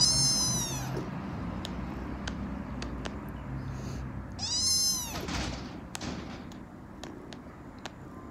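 Kitten giving two short, very high-pitched squeaky meows about four seconds apart, each rising then falling in pitch; the first comes with a wide-open-mouthed yawn.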